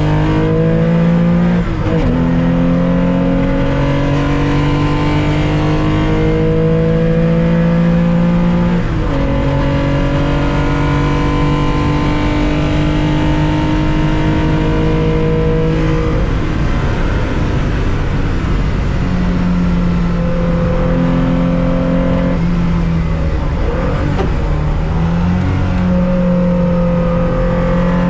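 1965 Porsche 911's 2.0-litre air-cooled flat-six heard from the cockpit under full throttle, its note climbing through the revs. It drops abruptly on upshifts about two and nine seconds in, then climbs again. Past the halfway point the driver lifts off and the engine runs lower and more unevenly on part throttle.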